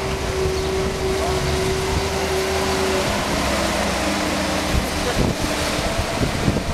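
Boat travel lift's engine running as the lift drives slowly with a sailboat hanging in its slings, with a steady whine that shifts lower about three seconds in.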